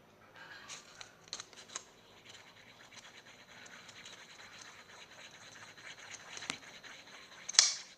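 Shampoo-and-salt slime mixture being stirred: a faint, continuous scratchy scraping with many small clicks, and one louder scrape near the end. The mixture is turning crumbly.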